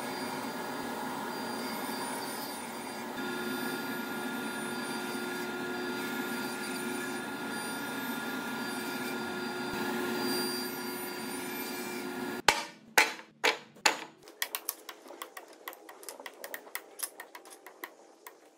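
Sliding table saw running steadily and cutting tenons in a timber blank for about twelve seconds, then stopping abruptly. After it comes a run of sharp wooden knocks and clicks, loudest at first, then smaller and quicker.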